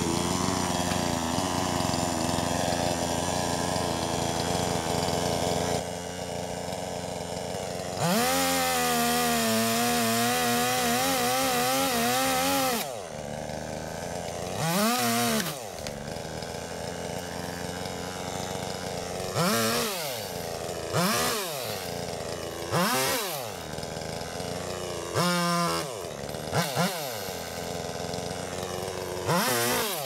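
Chainsaw cutting branches off a tree: a steady running sound, then one sustained cut of about five seconds at high revs, followed by about six short revs that rise and fall as the saw is blipped through smaller branches.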